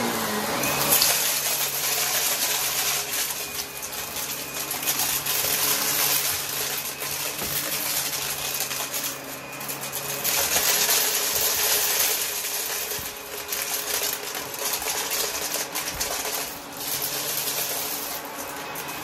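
Upright vacuum cleaner running over a hard floor, its motor humming steadily while scattered crumbs and small pellets rattle up into the nozzle.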